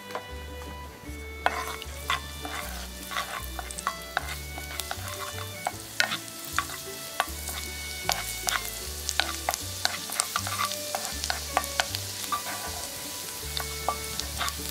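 Minced garlic sizzling in hot oil in a nonstick wok, stirred with a wooden spatula that clicks and scrapes against the pan. The sizzle picks up about a second and a half in.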